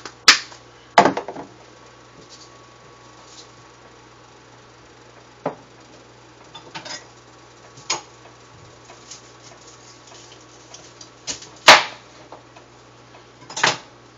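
A kitchen knife chops through a bunch of asparagus spears, cutting them in half: one big chop near the end is the loudest sound. A few lighter knocks and clicks come before it, and one more follows shortly after.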